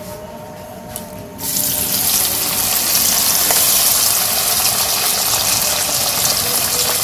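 Small mola fish dropped by hand into hot oil in a nonstick wok: a sudden sizzle starts about a second and a half in and goes on as a steady frying hiss while more fish are added.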